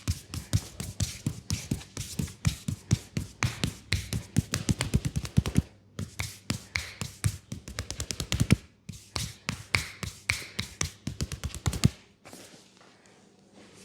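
Hands tapping and slapping rapidly on a leg in a percussive massage, about five or six strikes a second with two short breaks, stopping about twelve seconds in; soft rubbing follows.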